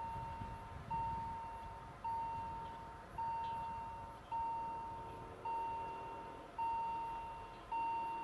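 Level-crossing warning bell striking about once a second, each stroke ringing out and fading, signalling the barriers closing for an approaching train.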